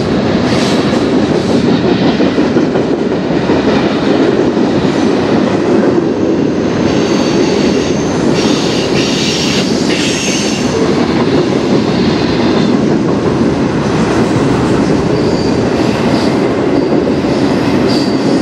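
Freight cars rolling past: a loud, steady noise of steel wheels on rail. A high squeal from the wheels rises over it for a few seconds midway and comes back faintly near the end.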